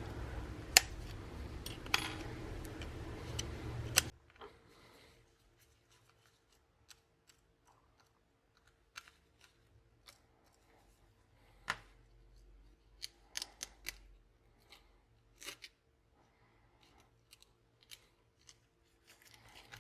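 Sharp little clicks and snaps as a pry tool works a plastic plate loose from a smartphone's body. A steady hiss runs under the first few seconds and cuts off suddenly.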